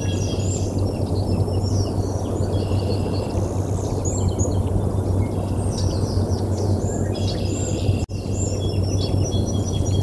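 Wind rumbling on an outdoor nest-camera microphone, over a steady low hum, while small songbirds chirp and twitter in the background. The sound cuts out for an instant about eight seconds in.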